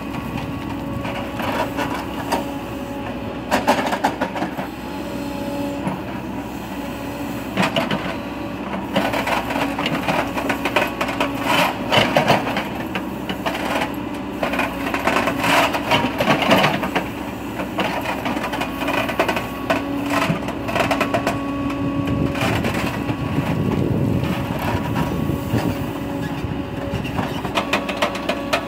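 Cat 428F backhoe loader digging a trench in stony ground: its diesel engine runs steadily while the backhoe bucket scrapes and crunches through rock and soil in repeated bouts of cracking clatter.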